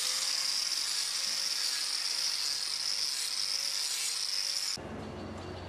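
Handheld angle grinder with a sanding disc running at full speed with a steady high whine while grinding a cow's hoof. It stops abruptly near the end.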